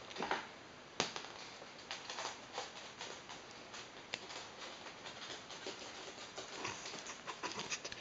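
Light, irregular taps and clicks of an eclectus parrot's feet and beak on a wooden floor as it walks about and nudges a small bead, with one sharper tap about a second in and a quick cluster near the end.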